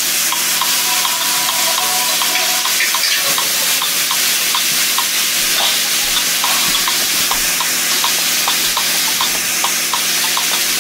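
Sliced onion, tomato and peppers sautéing in coconut oil in a hot pan: a steady sizzle with frequent small crackles.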